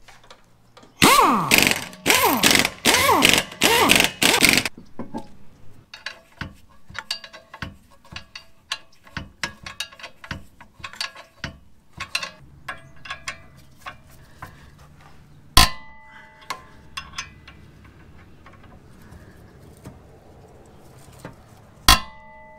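A cordless impact wrench triggered in about six short bursts, its motor whirring down in pitch after each. Then a long run of light clicks and taps from hand tools working on the brake caliper, broken twice by a sharp metallic clang that rings on briefly.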